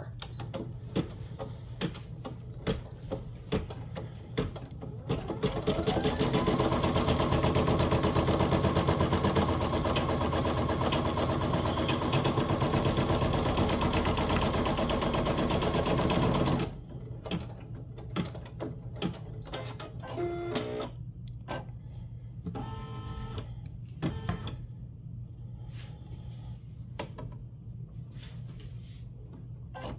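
Brother Innov-is NS1250E embroidery machine stitching a tack-down line. It ticks along for the first few seconds, then speeds up to a fast, steady run with a motor whine and stops suddenly about halfway through. After the stop come scattered clicks and two short whirring sounds.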